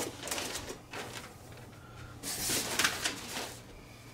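Rustling and crinkling of packing material as parts are handled and searched through, in irregular bursts.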